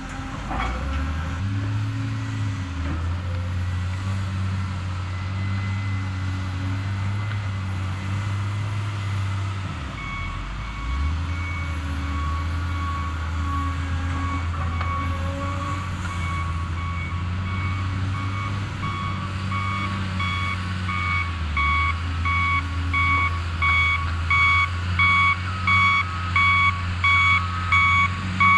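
Diesel engine of a Cat hydraulic excavator running steadily as it digs, dipping briefly about a third of the way in. A heavy-equipment backup alarm, most likely on a reversing front end loader, beeps faintly from about a third of the way in and grows loud near the end, pulsing evenly about once a second.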